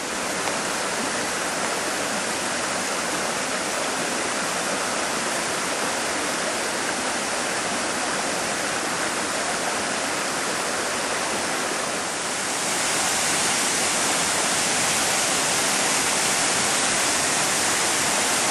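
Steady rush of running water, growing louder and brighter about twelve seconds in.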